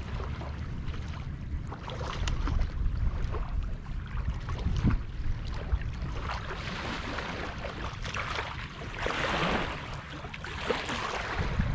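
A hooked bass splashing at the surface of shallow water as it is reeled in to the bank, with bursts of splashing in the second half. Steady low wind rumble on the microphone underneath.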